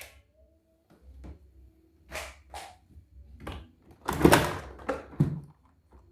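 Handling noises from unboxing: a series of short knocks and scrapes, the loudest about four seconds in.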